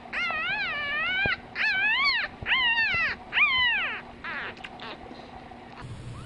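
Newborn puppy squealing while being bottle-fed: about four high, wavering cries in the first four seconds, then fainter sounds. The puppy is fussing and wriggling at the bottle.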